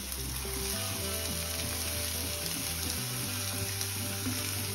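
Frying pan sizzling steadily as diced white radish is tipped and pushed by hand into hot oil and sautéed onions, under soft background music with long held notes.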